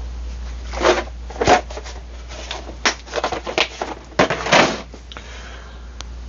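Tools and small parts handled on a workbench: a run of irregular clicks, knocks and rustles, bunched through the middle, with one more click near the end.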